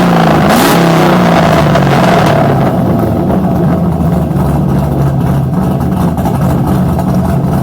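Cammed 5.3 L LS V8 (Sloppy Stage 3 camshaft) revved, its pitch falling and rising in the first second or so. It then drops back and settles into a steady, uneven idle from about two and a half seconds in.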